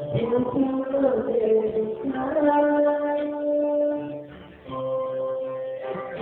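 A young man singing into a handheld microphone, holding a long note through the middle with a brief break for breath before the next line.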